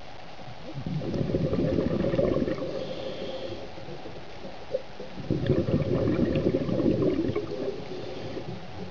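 Scuba regulator exhalation underwater: two long bursts of bubbling and gurgling a couple of seconds apart, the rhythm of a diver breathing out through the regulator.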